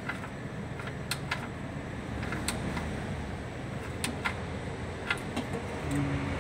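Scattered light clicks and taps, about a dozen at irregular intervals, from hands handling parts under a vehicle, over a steady low hum.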